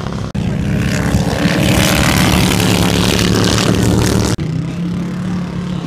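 Engines of two vintage hot rods running hard as the cars race past on the sand, swelling to a peak about two seconds in. The sound cuts off suddenly about four seconds in, and a steadier, quieter engine note takes over.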